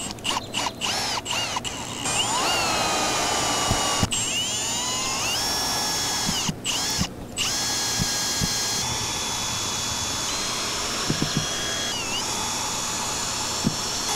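Cordless drill driving stainless steel screws into the metal trim ring of a camper access door. A few short trigger blips come first, then the motor runs in long spells, its whine rising and falling in pitch, with two brief stops around the middle.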